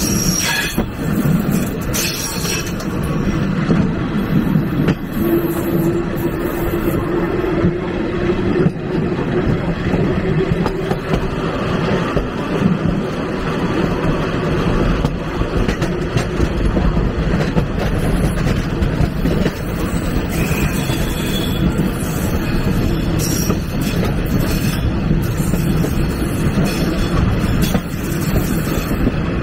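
Passenger carriage of a steam-hauled train rolling along the track: a steady rumble and clatter of its wheels on the rails. A faint held tone sounds for several seconds starting about five seconds in.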